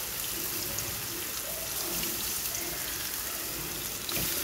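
Chicken meatballs shallow-frying in oil in a non-stick kadai, browning: a steady sizzle.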